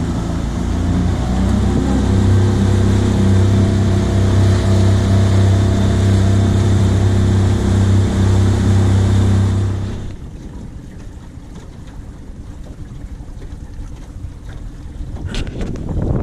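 Small motorboat's engine running steadily at speed, with water rushing past the hull. About ten seconds in the engine sound drops off abruptly, leaving quieter water and wind noise and a short click near the end.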